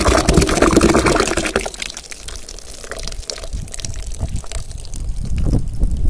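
Watermelon juice pouring in a thick stream into a steel bowl of mashed watermelon pulp, splashing loudly and stopping after about a second and a half. Then faint scattered pops from the froth on the surface, with wind rumbling on the microphone near the end.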